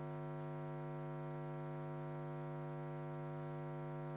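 Steady electrical mains hum: a low drone with a stack of many higher overtones, unchanging in level.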